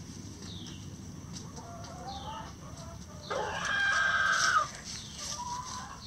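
A rooster crows once, a loud call of a little over a second about halfway through, among soft clucking from foraging hens.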